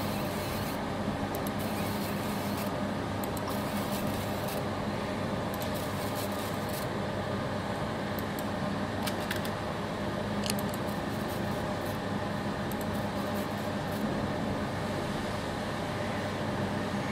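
Steady whirring hum of a fiber laser marking machine's cooling fan, with a few faint clicks scattered through it.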